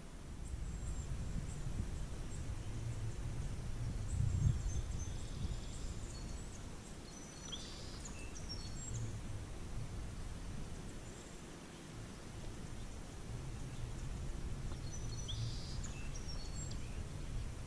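Outdoor river-bank ambience: a steady low rumbling noise, with small birds chirping in short, high phrases in several bouts.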